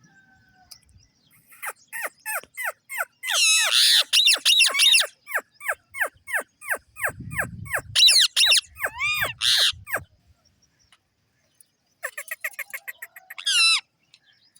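Green parrots calling: a fast run of short falling chirps, about three a second, mixed with loud harsh screeches. After a pause, a second shorter burst of chirps and a screech comes near the end.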